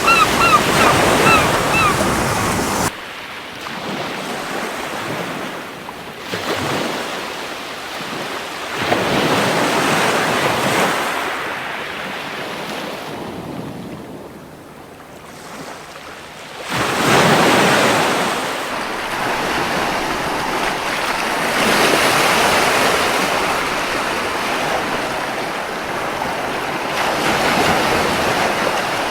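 Surf breaking and washing up a beach, the noise swelling and ebbing in waves, with the loudest surge about 17 seconds in. A gull calls several times in quick succession at the start.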